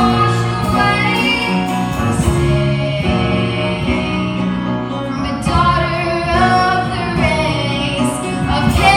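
A young woman singing a solo musical-theatre ballad with instrumental accompaniment, holding long notes with vibrato.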